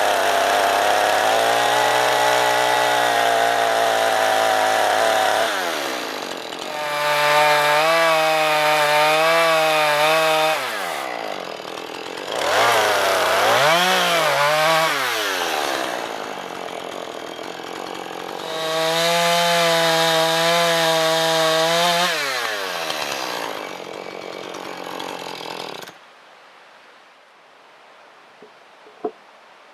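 Chainsaw engine revving up under load and dropping back to idle four times, then switched off abruptly a few seconds before the end.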